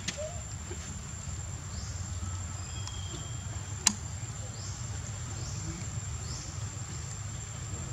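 Outdoor forest ambience: a steady high-pitched insect drone over a low rumble, with a single sharp click about four seconds in.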